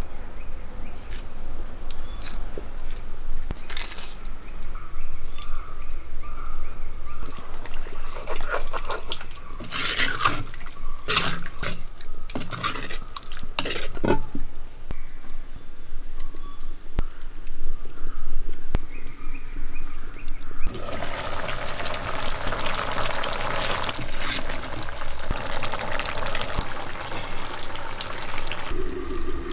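Water trickles as it is poured into a small clay cup of beef masala powder. Then come a series of sharp knocks and scrapes from handling clay pots and the clay lid. About two-thirds of the way in, a steady hiss of the beef curry cooking in the clay pot over a wood fire begins.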